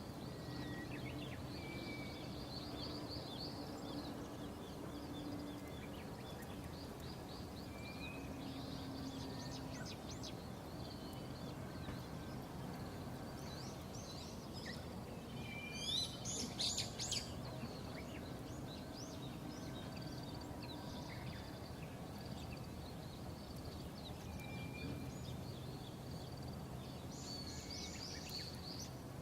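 Ospreys calling: a running series of short, high chirps and whistles, with a louder burst of rising calls about sixteen seconds in and again near the end, over a steady low background hum.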